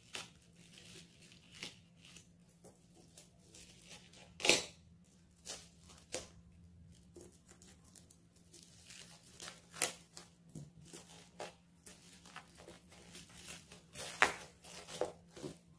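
Utility knife blade slitting the tape and black plastic mailer of a parcel, in scattered short rips and crinkles, with the loudest rip about four and a half seconds in. Near the end the plastic is torn open by hand over bubble wrap.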